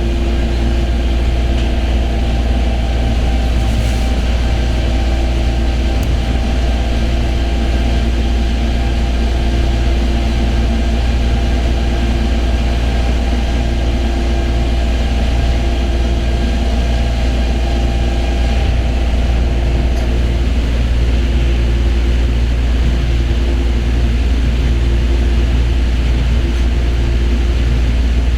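Running noise heard inside an Osaka Monorail train on its rubber-tyred straddle-beam line between stations: a steady low rumble with a constant hum. A higher-pitched part of the hum drops out about two-thirds of the way through.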